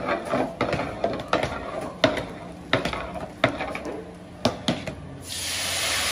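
A long metal ladle knocking and scraping against a large metal cooking pot as thick rice is stirred, in irregular clanks about once or twice a second. About five seconds in, a steady hiss sets in.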